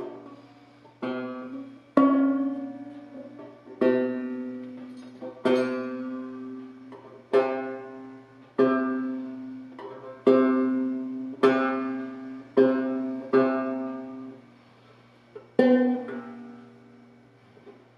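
A banjo string plucked on its own again and again, about eleven times, at the same note. Each pluck rings out and fades while the string is brought to pitch during a tune-up.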